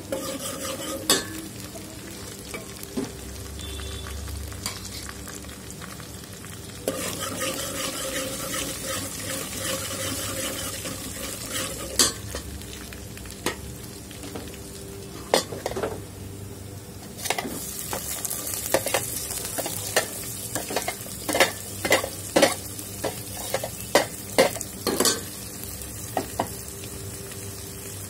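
Oil sizzling in an aluminium pot as a tempering with dried red chillies fries, while a steel ladle stirs and knocks against the pot in sharp clinks, coming thick and fast in the second half.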